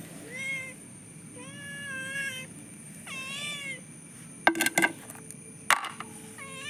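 A cat meowing over and over, several drawn-out meows that each rise and then fall in pitch, with a few sharp clicks a little past halfway.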